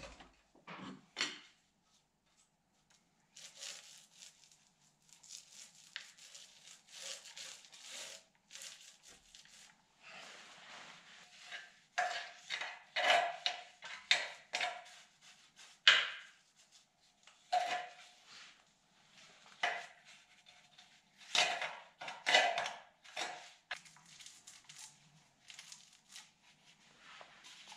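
Paint being worked by hand onto a steel chassis frame rail: irregular scrubbing and scraping strokes, some with a light metallic ring, busiest in the middle and near the end, with one sharper click about halfway through.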